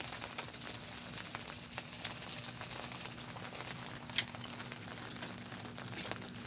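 Steady rain with many small drops pattering, over a faint steady hum, and one sharper click about four seconds in.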